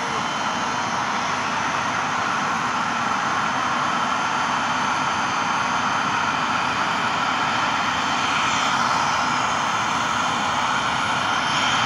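Large ambulance helicopter running on the ground: a steady turbine whine over rotor noise, slowly growing louder.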